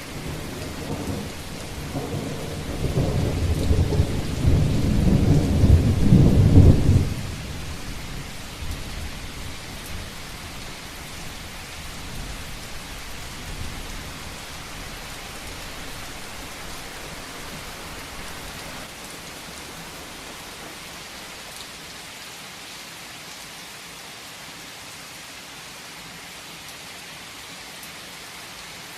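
Heavy rain falling steadily, with a long roll of thunder that builds over the first few seconds, peaks about six to seven seconds in, then drops off sharply and rumbles away over the next ten seconds.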